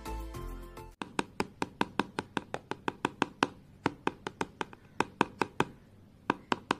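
Background music ends about a second in. Then a homemade fake nail of paper, wheat flour and nail glue taps against a hard surface in a fast run of sharp clicks, about five a second. The hard clicking shows the nail has set hard and strong.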